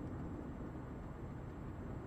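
Steady low rumble of engine and tyre noise inside the cabin of a 2005 Fiat Punto II with its 1.2-litre, 60 hp four-cylinder petrol engine, cruising at an even pace.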